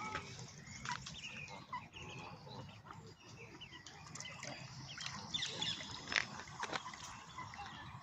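Ducks and ducklings calling and peeping while they feed, many short chirping calls overlapping, with scattered small clicks.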